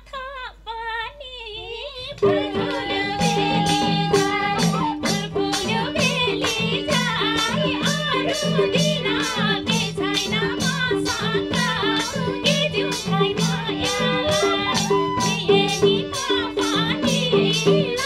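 Nepali lok dohori song: a woman's voice sings alone at first. About two seconds in, madal hand drums and a harmonium come in with an even beat under the women's singing.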